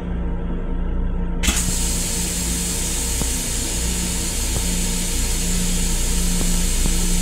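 Steady low rumble and hum of an M7 electric railcar, heard from inside its restroom. About a second and a half in there is a sharp click, and a steady hiss starts and keeps going.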